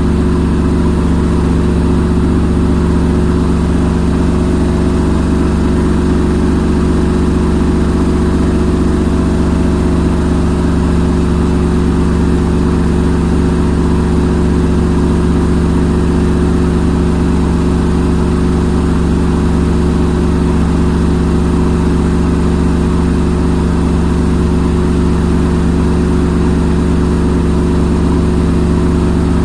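Front-load washing machine in its spin cycle: the drum spinning with a loud, steady hum that holds one pitch throughout.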